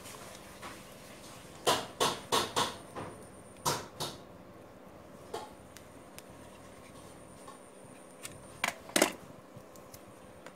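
Handling noise from working a coaxial cable end with hand tools on a wooden bench: sharp clicks and taps, a quick cluster about two seconds in, two more near four seconds, and two louder ones near nine seconds.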